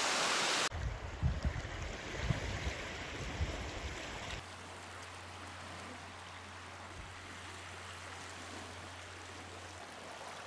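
Wind buffeting the microphone in gusts, an irregular low rumble, for about the first four seconds. After an abrupt change it gives way to a faint, steady wash of small waves on a lakeshore, with a low steady hum underneath.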